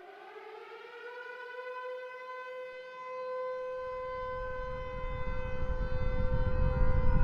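A long, steady train horn note that bends up slightly as it starts. A low rumble swells louder beneath it from about halfway through, like a train bearing down.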